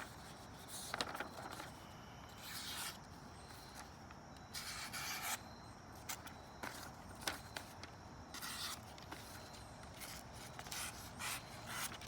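Ganzo Firebird FH21 folding knife's D2 steel blade slicing through a sheet of plain paper in a sharpness test. About ten short, hissy scraping strokes, with the longest cut near the middle.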